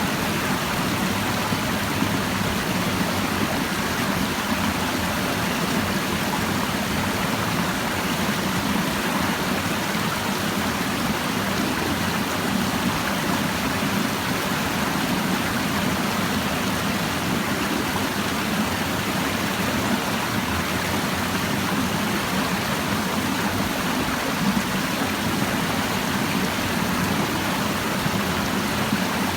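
A clear mountain stream babbling over rocks: a steady, even rush of flowing water.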